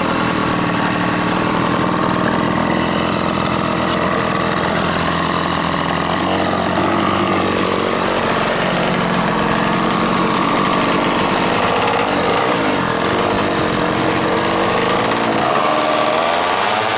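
The 128 cc two-stroke engine of a Yamaha F1ZR drag bike, fitted with a Honda Grand CDI on trial, running loud and steady. Its pitch rises and falls near the end.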